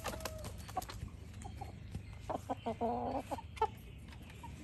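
Thai game chickens clucking: a scatter of short clucks, with one longer call about three seconds in.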